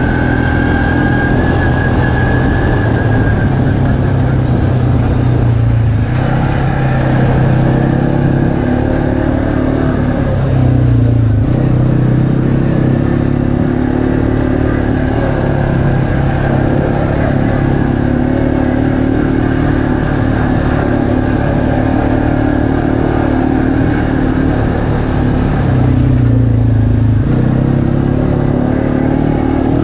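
ATV engine running steadily under way on a dirt trail. The engine note rises once, then twice dips briefly and climbs back as the throttle eases off and opens again.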